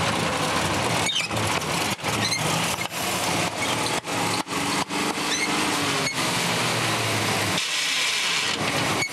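1948 Chevrolet Fleetmaster's 216 inline-six engine running as the car drives, firing on only two cylinders because the plug wires are dead and on the wrong firing order. A few short high squeaks come through now and then. The low engine sound thins out about a second and a half before the end.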